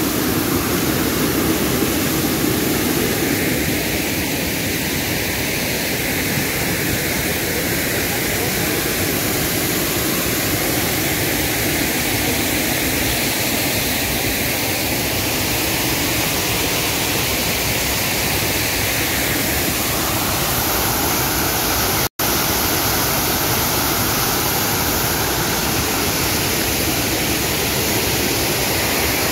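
Waterfall in full monsoon flow: a loud, steady rush of falling water. It cuts out for an instant about two-thirds of the way through.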